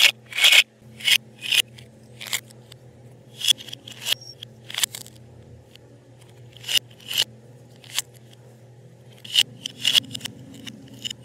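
Plastic toy knife cutting apart toy vegetables whose halves are held together with hook-and-loop fastener, and the plastic pieces knocking together: more than a dozen short, sharp rasps and clicks at uneven intervals, over a faint steady low hum.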